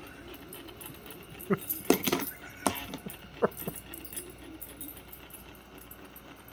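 A dog tussling with a Roomba robot vacuum: a quick cluster of sharp clacks and knocks with a metallic jangle, a handful of them between about one and a half and four seconds in.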